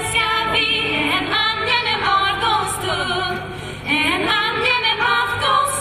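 Young women's voices singing a Swedish Lucia song together through microphones, with held, wavering notes.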